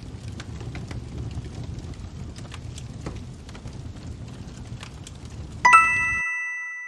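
Fireplace crackling with scattered pops, then about two thirds of the way through a single bright chime strikes and rings out, fading, as the crackling stops.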